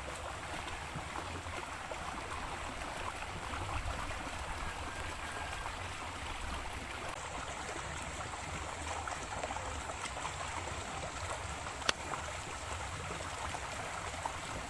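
Small shallow river flowing, a steady rush of running water, with a single sharp click about twelve seconds in.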